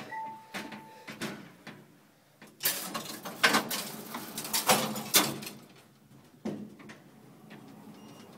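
Manually operated passenger elevator's sliding gate and door being worked: a few clicks, then a few seconds of loud metal clattering and sliding with several sharp bangs, settling into a low steady hum. A short steady tone sounds at the very start.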